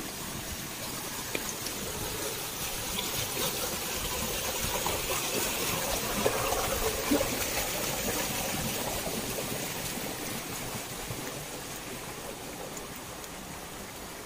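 Running water rushing, swelling to its loudest about halfway and then fading again: a rain-swollen stream or runoff channel.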